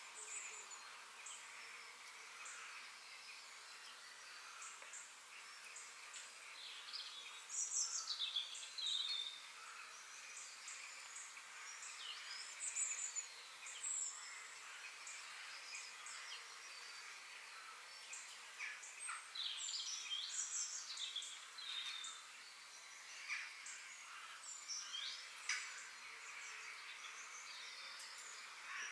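Several forest birds singing and calling: quick chirps and gliding whistled phrases over a steady high hiss of background ambience. The song is loudest in bursts about a quarter of the way in and through much of the second half.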